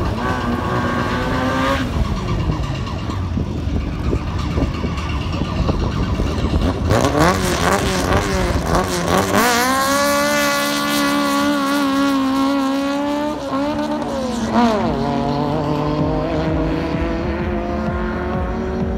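Drag-racing cars' engines revving hard at the start line. The pitch climbs sharply about seven seconds in and holds high for a few seconds, then dips and climbs again as the cars pull away down the strip.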